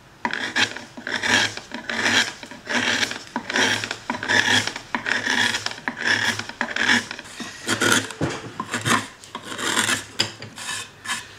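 A luthier working violin wood by hand: a steady run of short scraping strokes of a hand tool on the wood, about two a second.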